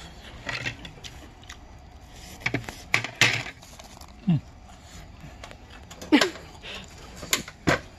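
Scattered clicks and light knocks of chopsticks picking up pieces of fried vegetable tempura from a paper-lined tray, with a couple of short vocal murmurs in between.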